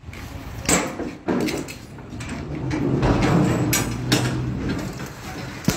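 Several sharp metal clanks from the locking bars and handles of a steel shipping container's doors as they are worked by hand, over a steady background rumble.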